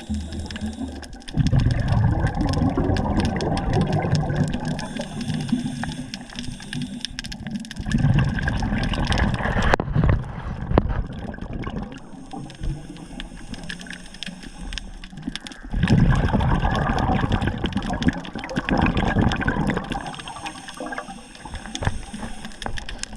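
Water sloshing and gurgling in irregular surges every few seconds, as waves lap against a jetty.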